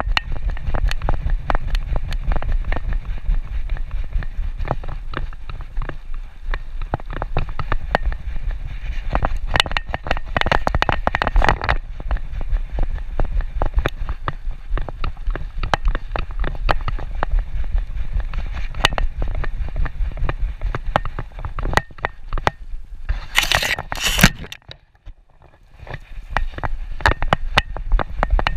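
Constant scraping and crackling of a GoPro strapped to a walking dog's back, the camera mount rubbing and knocking against fur and harness with her steps, over a low rumble. About three-quarters through come two short, louder rattles, then a brief lull.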